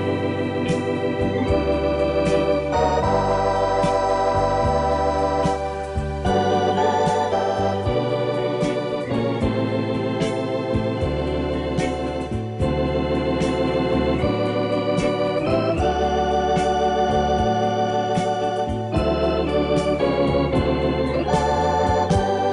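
Background music: held keyboard chords with an organ-like sound over a bass line that changes every second or two.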